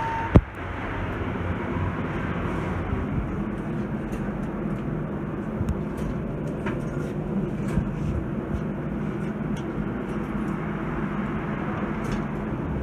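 A ThyssenKrupp hydraulic elevator car riding upward, giving a steady low hum from the hydraulic pump drive and the moving car, with a few faint clicks.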